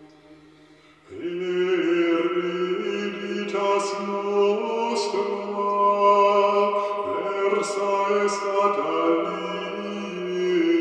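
Voices singing a slow sacred chant. A faint held note dies away, then the singing comes in strongly about a second in and moves through long, held notes in slow steps of pitch.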